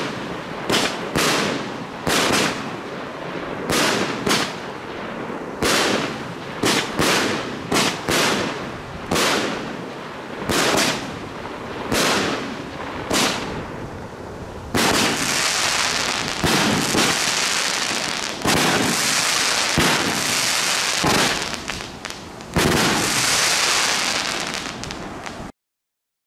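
Stepcake Tropic firework cake firing: a string of sharp shots, about one a second, each trailing off. About fifteen seconds in, it changes to a dense, steady crackling, which cuts off suddenly near the end.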